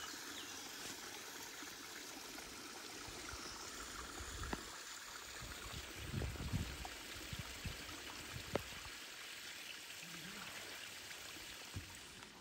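Water pouring from a hose onto rocks and running off in a small rivulet: a steady splashing, with a few dull thumps around the middle.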